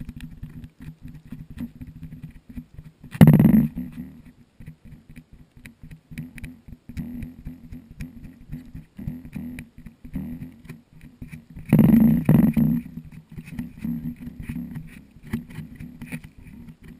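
A kitten's tongue licking a GoPro camera's lens right at its microphone: a quick, uneven run of rubbing clicks, with two louder bursts about three seconds in and about twelve seconds in.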